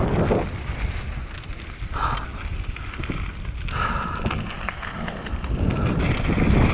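Mountain bike tyres rolling fast over a loose gravel trail, with wind buffeting the action-camera microphone and a constant crackle of small rattles and stone hits. Two short higher-pitched hisses come about two and four seconds in.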